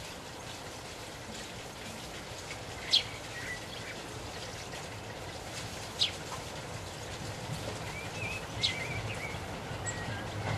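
A Class 24 diesel locomotive's low engine rumble as it approaches slowly, growing louder towards the end. Over it, a bird gives three sharp chirps about three seconds apart, with soft twittering between them.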